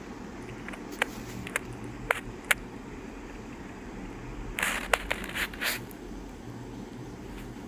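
Four sharp clicks of metal surgical instruments being handled in the first few seconds, then a short cluster of louder handling clicks and scrapes about four and a half to six seconds in, over a steady low hum.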